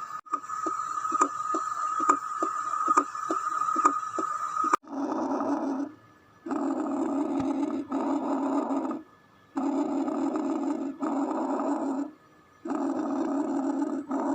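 A steady high tone with sharp clicks about twice a second, which cuts off suddenly about five seconds in. It is followed by harsh, rushing breath sounds as heard through a stethoscope: several breaths in and out, with short pauses between them.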